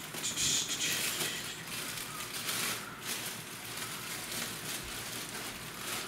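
Plastic bread bag of hot dog rolls crinkling and rustling as it is handled and opened, with irregular crackles.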